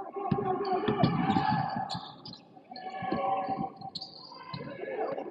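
Basketball game sound in a gym: indistinct voices, a few thuds of a bouncing ball and short high squeaks of sneakers on the court.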